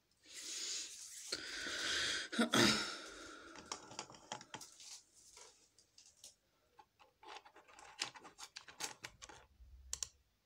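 Rustling and handling close to the microphone, with one louder knock about two and a half seconds in, then a run of light, irregular clicks and taps of small objects being handled.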